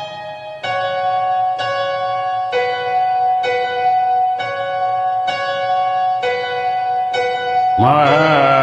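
Backing-track intro of keyboard chords, struck again about once a second at an even pace. Near the end a voice comes in singing over them.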